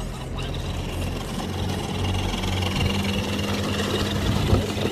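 Remo Hobby 1093-ST 1/10-scale RC crawler's electric motor and geared drivetrain whining steadily as it drives over gravel and ice, with a brief knock near the end.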